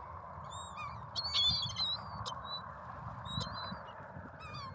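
Gulls calling: a scatter of short, arched, high-pitched calls, busiest between about one and two seconds in, over a steady background wash.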